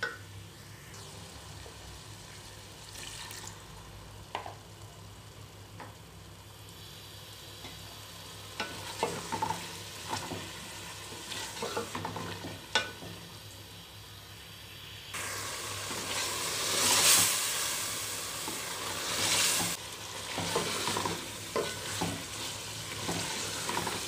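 Chicken masala sizzling as it is fried down with a splash of water in an aluminium pot, while a wooden spoon stirs and scrapes it, with scattered knocks of the spoon against the pot. The sizzling steps up suddenly and grows louder about fifteen seconds in.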